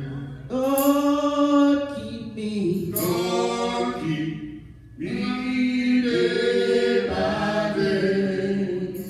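Three men singing a gospel song together into microphones, in three long phrases with notes held.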